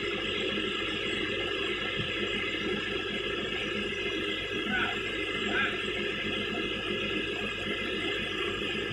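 Heavy diesel engine idling steadily, with an even low rapid pulse.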